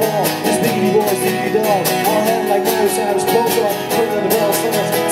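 Two acoustic guitars strummed steadily while a man sings along.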